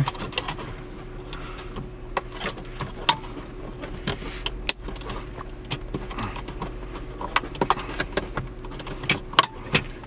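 Plastic centre air-vent panel of a BMW E46 dashboard being worked back into its opening: scattered clicks, taps and rubbing of plastic trim, the sharpest a little before halfway and near the end. A steady low hum sits underneath.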